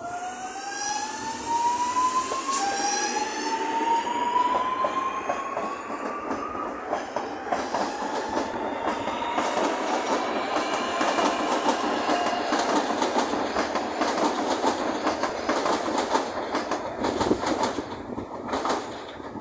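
Electric commuter train accelerating away, its traction motors whining in a tone that rises in pitch, climbing twice over the first several seconds and then levelling off. From about a third of the way in, the wheels clack busily over rail joints and switches.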